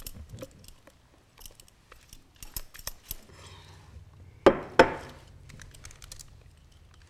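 Spatula scraping and tapping against a ceramic mixing bowl as cream cheese batter is poured out, with small scattered clicks. About four and a half seconds in, the bowl is set down on the countertop with two sharp knocks in quick succession.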